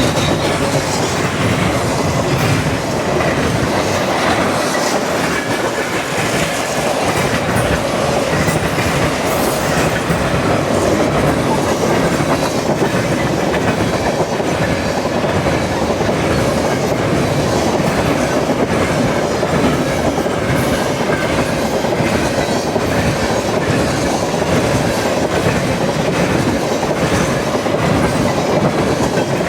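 CN freight train rolling past: a steady rumble of the railcars with the clickety-clack of their wheels on the rails.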